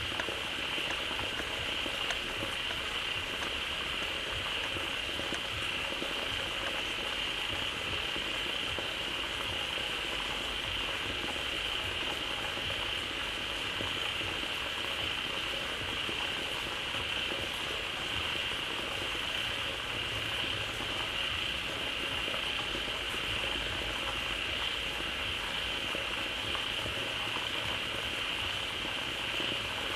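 A dense chorus of many frogs calling together at a pond that has just filled with water, the calls merging into a steady bubbling din with a constant high ringing band.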